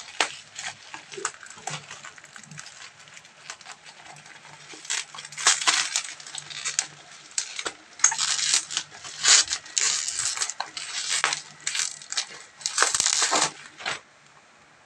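Bubble wrap and plastic packaging crinkling and rustling in irregular bursts as a small box is unwrapped by hand; the crinkling stops abruptly near the end.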